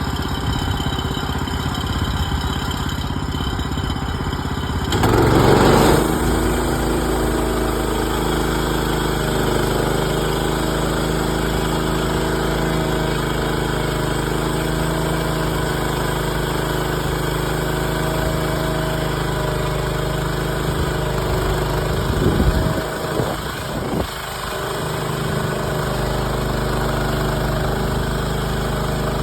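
Woodland Mills HM130 Max portable bandsaw mill's gas engine running. About five seconds in it surges louder and settles at a higher, steady speed. Near the end there is a brief unsteady spell and a dip before it evens out again.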